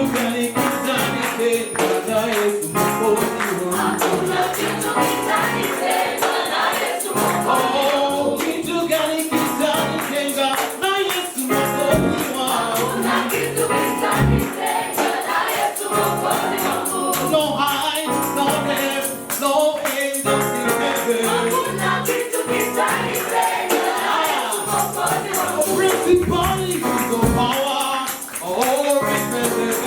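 Gospel worship song sung by a choir of voices, with tambourine.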